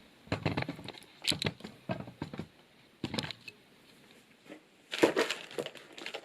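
Keyboard box packaging being handled: a string of short rustles and taps, a quiet pause of over a second, then a louder rustle near the end.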